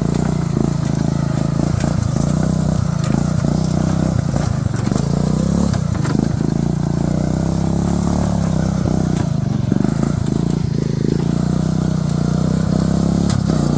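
Small engine of a Poulan XT riding lawnmower running steadily as the mower is driven, with a few faint knocks and clatter over it.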